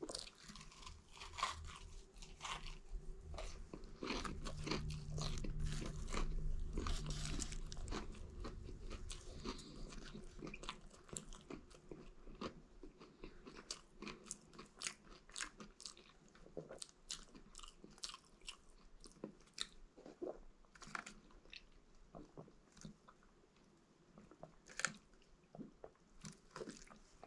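A person eating close by: chewing and crunching food, with many small mouth clicks. Loudest for a few seconds about four seconds in, then fainter, scattered clicks.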